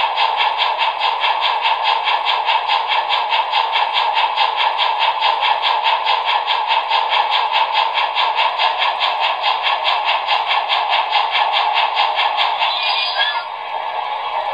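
Sound decoder of a Trix Challenger model steam locomotive playing rapid, even steam exhaust chuffs as the model runs on its test rollers. The chuffing stops about thirteen seconds in as the throttle is turned down, leaving a softer steady hiss.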